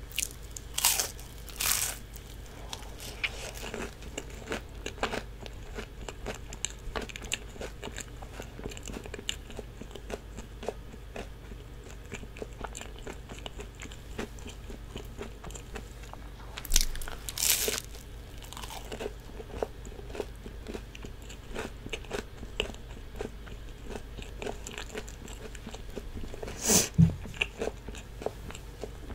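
Crunchy bites into a battered, deep-fried sweet potato slice (goguma twigim), close-miked, with steady chewing between them. The loudest crunches come twice near the start, in a cluster around the middle and once near the end.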